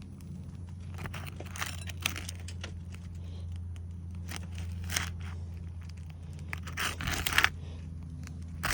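Asphalt shingles being unsealed with a putty knife: scattered scraping and tearing rasps as the sealant strip pulls apart, loudest near the end, over a steady low hum.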